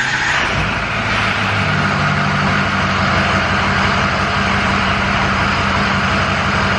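Ford 6.0 Power Stroke V8 turbo-diesel just started, coming up to a steady idle, heard from inside the truck's cab. This is the first start after a new glow plug was fitted in cylinder 5.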